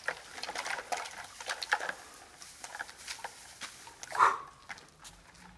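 Ice cubes tipped from a plastic bag into a plastic bowl: scattered clicks and rattles of ice along with plastic bag crinkling, then a louder short sound about four seconds in as the emptied bag is flung away.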